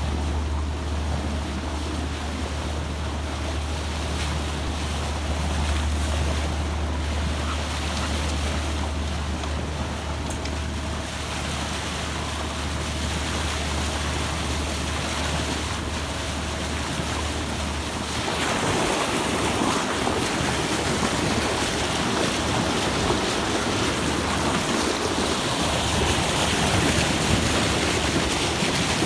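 Water rushing and splashing at the bow of a moving boat, with wind on the microphone. A steady low drone underneath stops about two-thirds of the way through, where the water noise grows louder and rougher.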